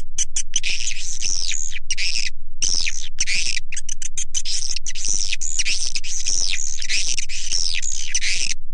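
Swiftlet lure call: a recording of edible-nest swiftlet chirps and twitters, played as a loop to draw swiftlets into a swiftlet house. It comes in dense runs of rapid high chirps with short gaps between them.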